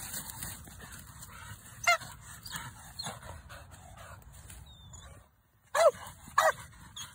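Pit bull giving short, high whining yelps: one about two seconds in, then two close together near the end, each falling in pitch. The sound drops out briefly just before the last two.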